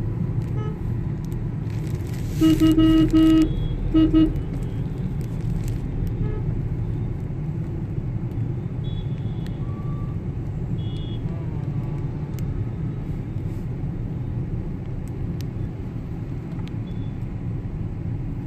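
Steady engine and road rumble inside a moving Suzuki hatchback's cabin. A car horn sounds twice a few seconds in: a honk of about a second, then a short one.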